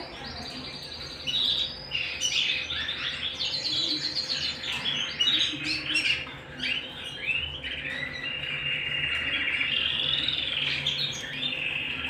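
Domestic canaries singing: fast chattering phrases and rapid trills, then a long, even trill from about eight seconds in.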